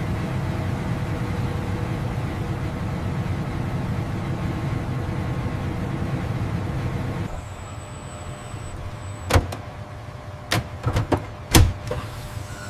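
A steady low mechanical rumble that drops away about seven seconds in. It leaves a quieter hum with a faint high whine, then a run of sharp mechanical clicks and knocks.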